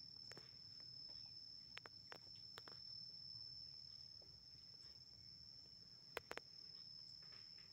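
Near silence: quiet outdoor ambience with a thin, steady high-pitched tone and a few soft clicks, the loudest a quick pair a little after six seconds in.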